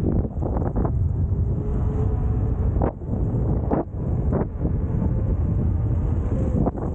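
Wind buffeting the microphone during an electric skateboard ride, over a steady low rumble of wheels on the road, with a few sharp knocks from bumps in the surface.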